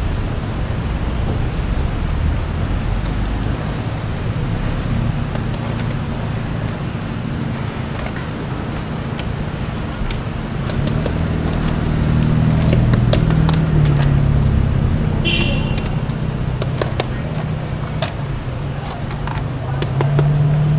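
Steady road traffic noise with vehicle engines running, swelling as vehicles pass in the middle and near the end. Scattered light clicks and knocks, and a brief high squeak about fifteen seconds in.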